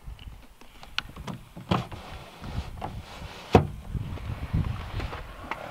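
A car's rear door and its trim being handled: a string of clicks and knocks, the loudest about three and a half seconds in, over an uneven low rumble.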